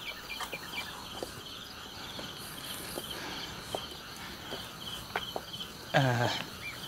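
Insects chirping in a steady high pulsing rhythm of about three to four pulses a second, with faint scattered clicks. Near the end comes a short human vocal sound that falls in pitch.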